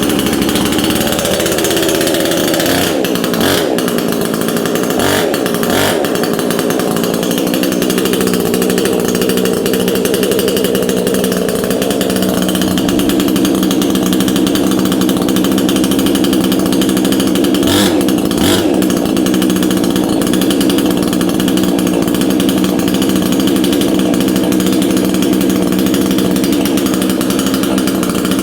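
Proyama 68cc two-stroke chainsaw engine running just after a cold start, its pitch wavering for the first several seconds before settling into a steady run. A few brief sharp sounds cut through it early on and again about two-thirds through.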